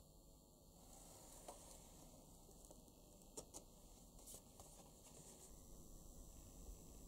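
Near silence: faint steady room noise with a few soft, brief clicks.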